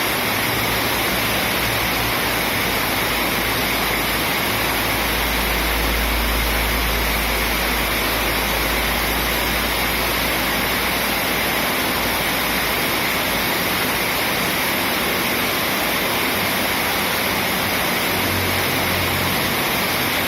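Small waterfall: a steady, unbroken rush of falling water, with a deeper low rumble swelling for several seconds a few seconds in.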